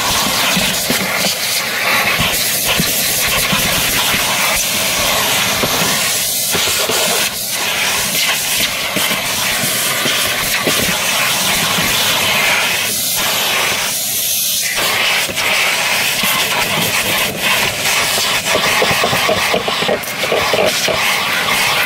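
Vacuum cleaner running steadily with a loud, even hiss as its hose nozzle sucks dirt and debris off a car's floor carpet, the tone dipping briefly a few times.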